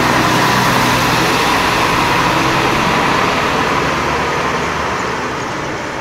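Steady motor vehicle engine and road noise, slowly fading.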